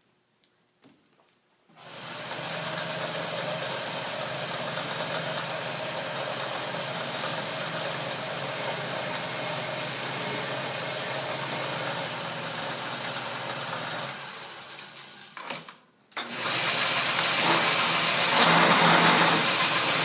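Atlas lathe with a milling attachment running, its end mill cutting a slot in strap iron: a steady machine hum and cutting noise starts about two seconds in, fades and stops briefly near the three-quarter mark, then starts again louder. The cut is too aggressive and digs in hard on one side.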